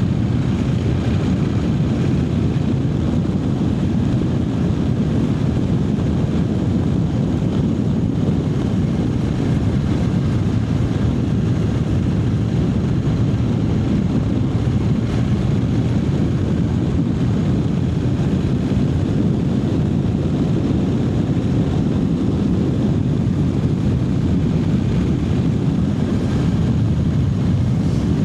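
Triumph Speed Twin 900's 900 cc parallel-twin engine running steadily under way, with no revving up or down.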